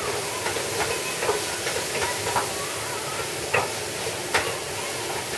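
Onions, curry spice and tomato paste sizzling in oil in a stainless steel sauté pan, a steady hiss, while a wooden spoon stirs them, with a few light knocks and scrapes of the spoon against the pan.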